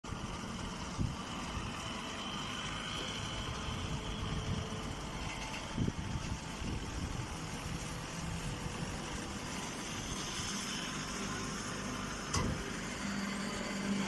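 Straw baler machine running: a steady mechanical hum with sharp knocks about a second in, near six seconds and past twelve seconds. A low steady tone joins near the end.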